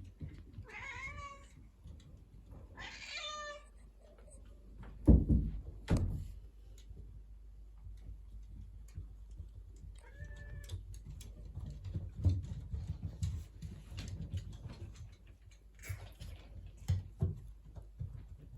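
Domestic cat meowing at feeding time: two meows in the first few seconds and another about ten seconds in. Two loud thumps come around five and six seconds in, with light knocks and taps scattered through the rest.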